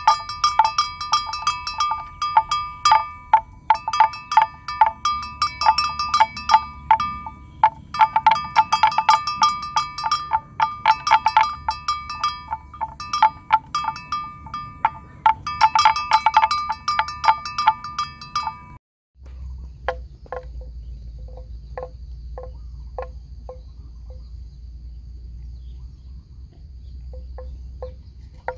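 Bells worn by grazing water buffalo clanking busily and irregularly, many overlapping strikes, until they stop abruptly about two-thirds of the way in. After that a lower-pitched bell knocks sparsely, roughly twice a second with pauses, over a low rumble.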